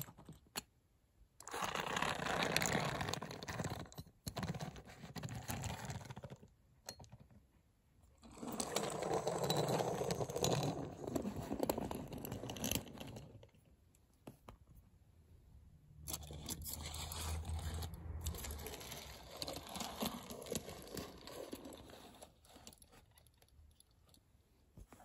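Small die-cast Tomica toy trucks and buses pushed by hand across a wooden floor, their little wheels rolling and scraping, in three stretches of several seconds each.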